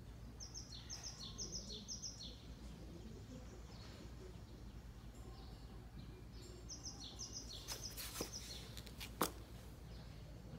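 A bird calling in two runs of short, high chirps repeated several times a second, over a steady low outdoor rumble. Near the end comes one short, sharp knock, the loudest sound.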